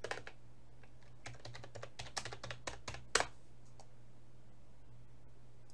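Computer keyboard typing: a quick run of keystrokes for about three seconds, ending in one louder click, then only a faint steady low hum.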